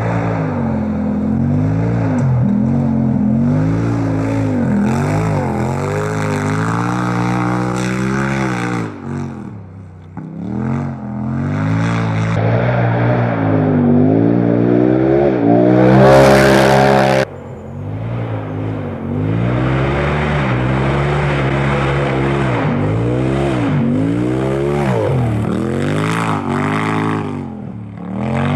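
Polaris RZR Pro XP side-by-side's turbocharged twin-cylinder engine revving hard, its pitch climbing and dropping over and over as the driver works the throttle at racing speed. About sixteen seconds in it passes close by at full throttle and the sound cuts off suddenly.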